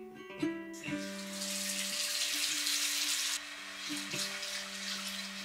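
Plucked-string background music with a steady hiss of running water over it; the hiss comes in about a second in and cuts off suddenly a little past halfway, leaving a fainter hiss under the music.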